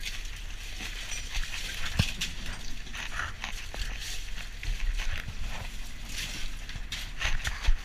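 Crushed ice crunching and rattling with scattered knocks as gloved hands dig iced fish out of a fish hold, over a steady low hum.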